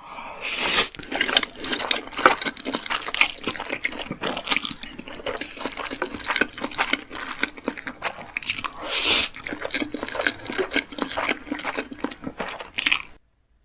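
Close-miked eating: crunchy food bitten and chewed, with a dense run of crisp crackles and two louder crunching bites, about a second in and about nine seconds in. The sound cuts off abruptly near the end.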